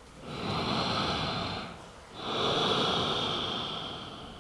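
A woman's slow, audible breathing: two long breaths, the first about a second and a half, the second about two seconds and fading away at its end.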